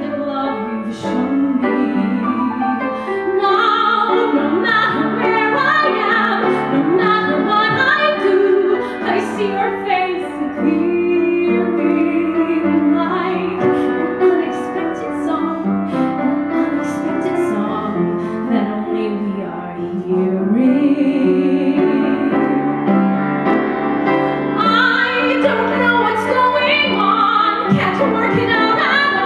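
A woman singing a musical-theatre song solo with vibrato, accompanied by an upright piano.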